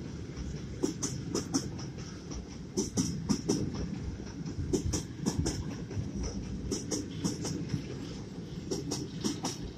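Empty timber wagons of a freight train rolling past with a steady low rumble. Their wheels clack over the rail joints in quick groups of clicks, repeating every second or two.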